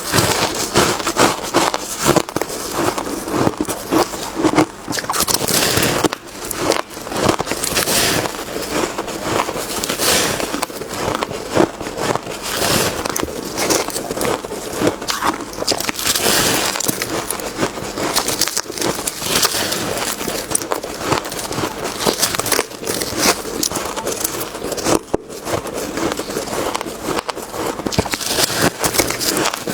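Ice being bitten and chewed close to the microphone: continuous crunching and crackling of many small bites.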